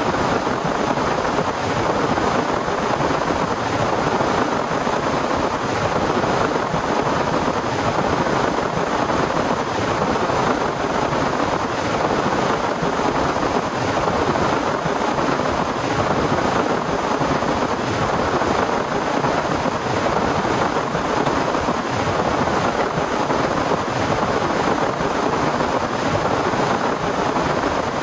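Heavy rain pouring steadily, a dense, even rushing noise with no breaks or thunderclaps.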